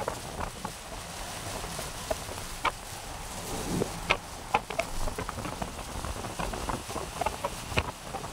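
Strong wind at the shore ahead of a typhoon, buffeting the microphone with a steady hiss and low rumble, and scattered sharp ticks and patter throughout.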